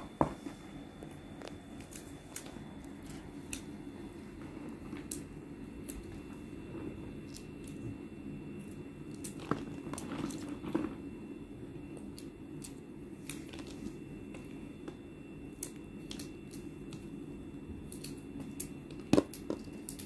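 Scattered small clicks and light knocks of vegetables and utensils being handled, over a low steady hum, with a louder knock right at the start and another near the end.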